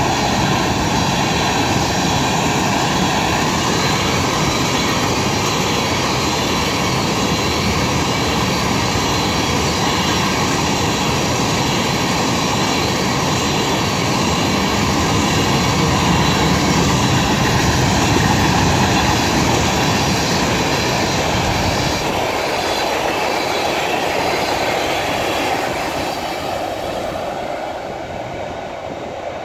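Freight train tank cars rolling past, a steady loud rumble and clatter of steel wheels on the rails. It thins out and fades over the last few seconds as the end of the train goes by.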